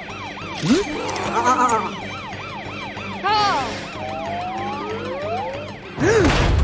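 Police car siren wailing in a fast rise-and-fall, about three cycles a second, with other sliding cartoon sound-effect tones over it. A loud whoosh-like burst comes near the end.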